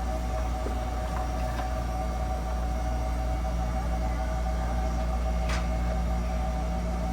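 Steady low machine hum with two steady tones over it, the running of machinery aboard a ferry; a single sharp click about five and a half seconds in.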